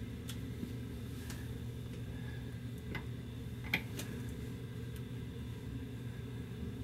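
Steady low hum with a few faint, scattered clicks, the loudest about three and a half seconds in.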